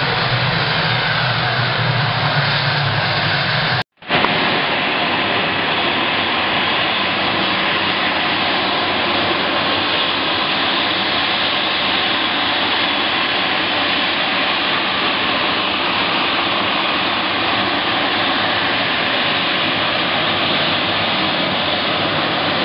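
Jet aircraft engines running on the apron, a steady loud noise. It cuts out for a split second about four seconds in.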